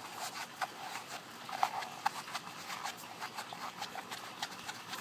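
Irregular small clicks and rubbing as a magic eraser sponge is pushed into a 2-inch PVC pipe fitting by hand.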